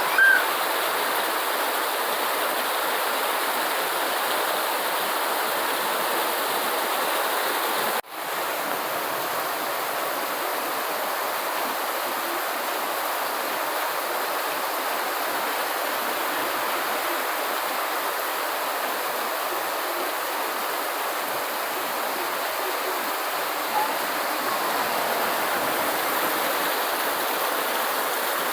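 Steady rain falling, an even hiss of water. A short high chirp sounds right at the start, and about eight seconds in the sound drops out for an instant before the rain resumes.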